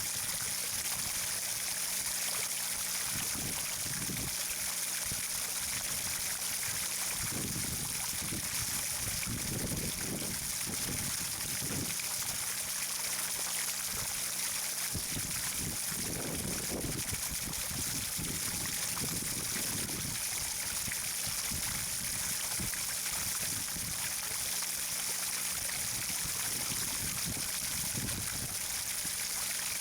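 Steady trickling, rushing water, with irregular low rumbles coming and going through the middle of the stretch.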